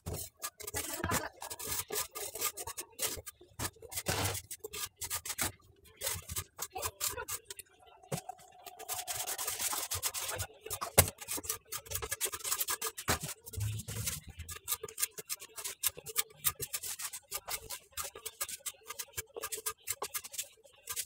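Hands rubbing and scraping over the rough surface of a handmade vase in quick, irregular strokes, smoothing it down.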